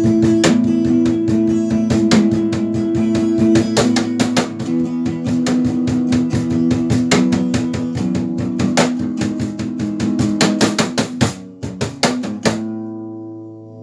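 Meinl cajon struck in a quick, steady rhythm, played along with guitar music coming from a computer's speakers. About twelve and a half seconds in, the strikes stop and a last guitar chord rings on.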